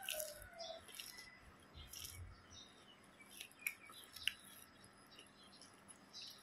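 Faint crunching and mouth sounds of someone chewing crispy deep-fried patongko (Thai fried dough sticks), with a couple of sharp crackles about four seconds in.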